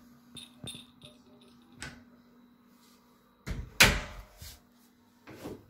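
Glass shower door in a metal frame being handled and shut, with light clicks and one loud clack about four seconds in, followed by a smaller knock near the end.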